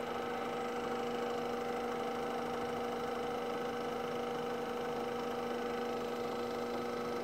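DC spindle motor of a small CNC lathe, run by a KB Electronics DC drive, spinning steadily at about 1550 rpm: a steady hum with several even overtones. It was commanded to 1500 rpm and is running a little fast, which is put down to the DC drive's non-linear response to the control voltage.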